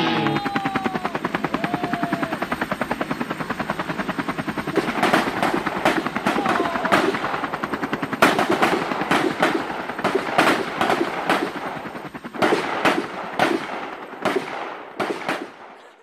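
Recorded gunfire sound effect played through the PA as part of a dance routine's remix: a long run of rapid automatic fire, then louder single shots and short bursts that grow sparser and cut off just before the end.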